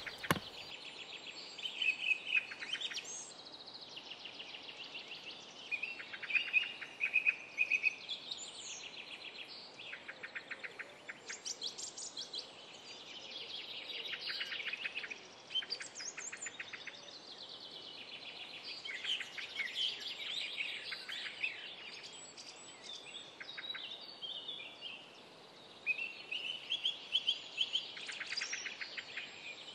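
Songbirds singing outdoors: several overlapping songs of chirped phrases and fast trills that recur every few seconds, over a faint steady background.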